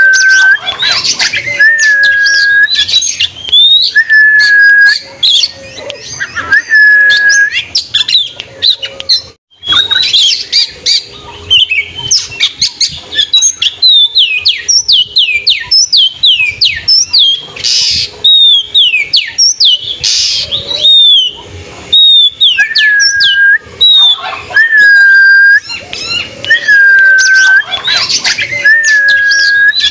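Oriental magpie-robin (kacer) singing loudly: long, level whistled notes repeated about once a second, alternating with quick runs of high, falling notes and chatter. The song breaks off briefly about nine and a half seconds in.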